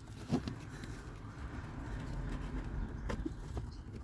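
Light handling noises as a cabin pollen filter is worked into a car footwell behind the pedals: a faint rustle over a low background hum, with a short click near the start and another about three seconds in.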